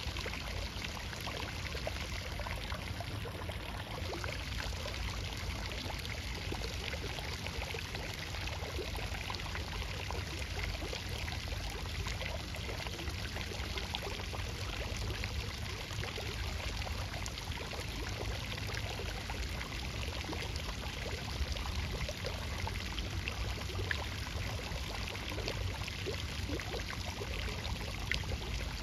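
Steady rush of flowing water, with a low rumble underneath and no break or change.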